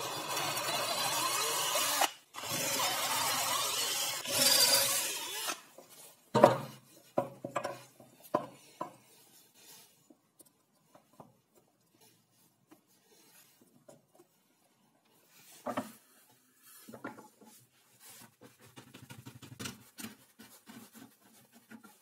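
Cordless drill boring into a stacked-plywood star knob, running in two bouts of about two seconds each with a short break between, the second growing louder before it stops. Then a run of sharp wooden knocks as the pieces are handled, and a few fainter knocks and taps later.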